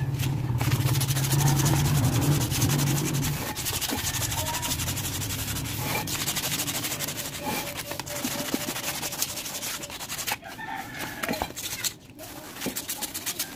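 Sandpaper rubbed by hand over a red-painted Honda City brake drum, a steady scratchy scraping, with a rooster crowing in the background. A low drone sits under it for the first three seconds or so.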